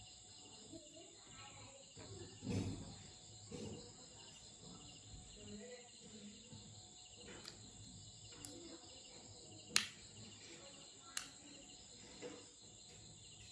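Hands handling a plastic-bottle toy car and its small parts on a wooden bench: a low knock about two and a half seconds in, then a few sharp clicks, the loudest near the ten-second mark. Under it all runs a steady high chirring of crickets.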